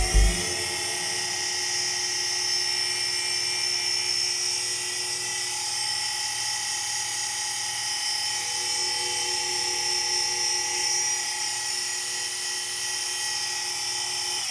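Mini X2 milling machine spindle running at a steady speed on its belt-and-pulley drive. It makes a steady high whine with several tones; the pitch rises briefly at the start, then holds.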